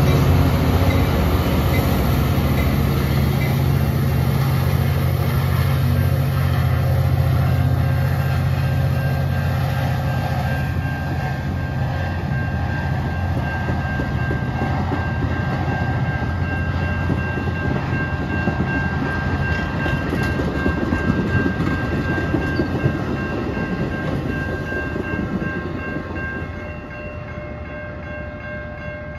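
A passing train: a diesel locomotive engine is loud at first and fades over the following seconds as the cars roll by on the rails. Faint steady tones come in about eight seconds in.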